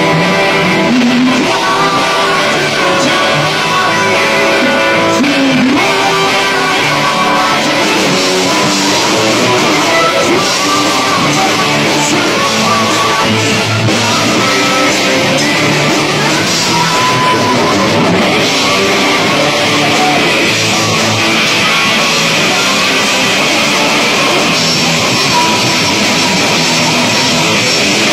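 Rock band playing: electric guitars over bass, drums and keyboard, the music dense and steady throughout.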